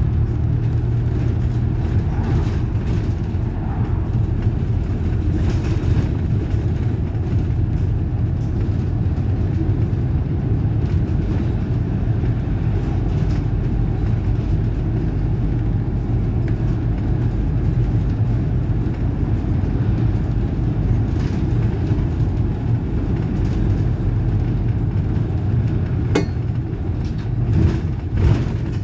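City bus on the move, heard from on board: a steady low rumble of engine and road, with a few light rattles and a sharp click near the end.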